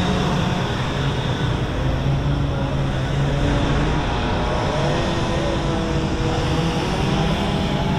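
Chainsaws running in the background, a steady overlapping engine drone whose pitch holds and shifts as the saws are throttled.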